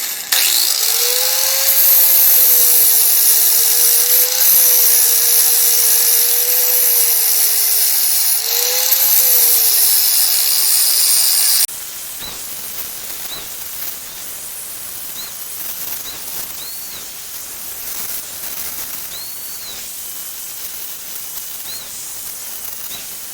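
Angle grinder with a flap disc grinding the lip of a 1990–94 Lincoln Town Car front spindle down for clearance: a loud, steady motor whine with a slightly wavering pitch over a grinding hiss. It stops abruptly about halfway through, leaving a quieter hiss with a few faint high chirps.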